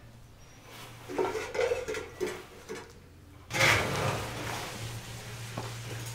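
Hands kneading a stiff, shaggy bread dough in a large aluminium basin: the dough squelches and is pushed and slapped about, with hands and dough knocking against the metal bowl. A louder thump comes a little past halfway, and a steady low hum runs underneath.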